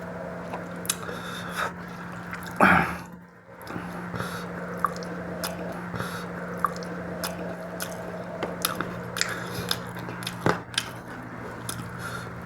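Close-miked chewing of mutton fat and rice: wet, squishy mouth sounds with many small clicks, over a steady low hum. A louder short burst comes about three seconds in, and a sharp one near ten and a half seconds.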